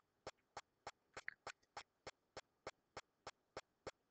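Near silence with faint, regular ticking, about three ticks a second, and one small extra sound about a second in.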